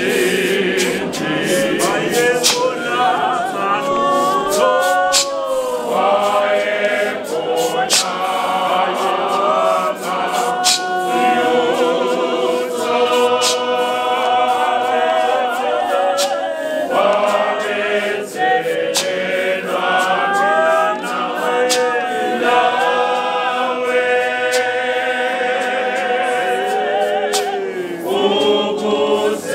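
Male choir singing a hymn a cappella: many men's voices in harmony with no instruments, with sharp clicks now and then.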